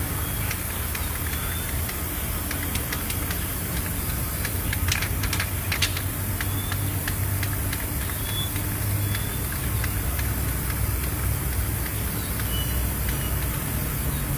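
Steady low rumble of a running vehicle engine, with a few short sharp sounds about five to six seconds in.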